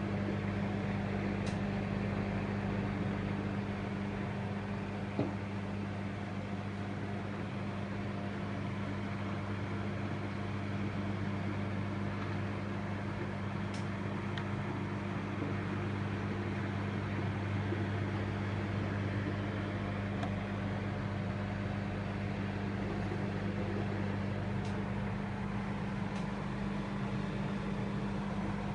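Severin MW 7875 microwave oven running: a steady, even hum with a whirring fan underneath, and a few faint ticks here and there.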